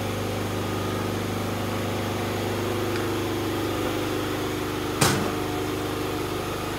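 Steady low hum of a running machine, with one sharp click about five seconds in.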